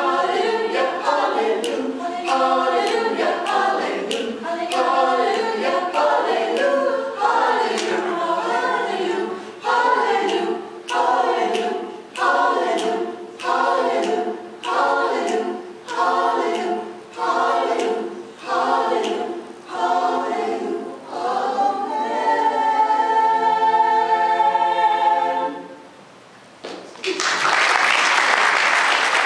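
Small mixed adult choir singing a cappella, with a run of short detached chords about one a second that ends on a long held chord. About a second after the singing stops, the room breaks into applause.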